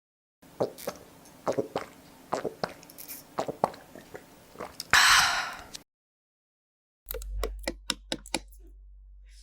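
Small plastic toy pieces of a pretend doctor set being handled, clicking and tapping against each other, with a brief noisy rustle about five seconds in and a quick run of clicks near the end.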